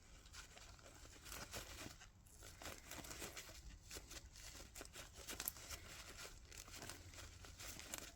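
Faint crinkling and rustling of paper towel wiping excess epoxy off a freshly glued lock pick, in many small irregular scratches.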